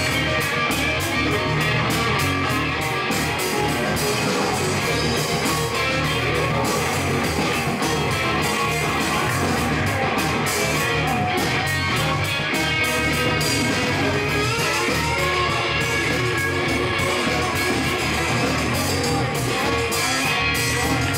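Live rock band playing an instrumental: electric guitar and electric bass over a steady beat of about four strokes a second.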